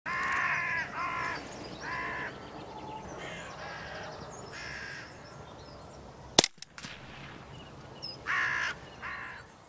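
Hooded crows cawing: three harsh caws in quick succession, fainter calls after them, then two more caws near the end. A single sharp crack about six seconds in is the loudest sound.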